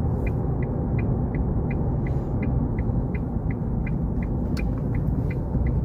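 A car driving on a sealed road, heard from inside the cabin: steady engine and tyre rumble, with a faint regular tick about three times a second.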